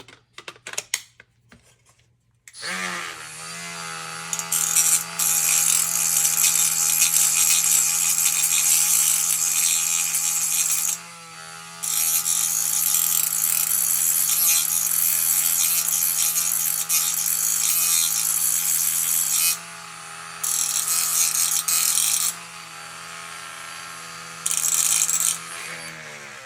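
Electric grinder spinning up about two and a half seconds in and running steadily, with loud grinding in four spells as small pieces are ground off a part. It winds down near the end.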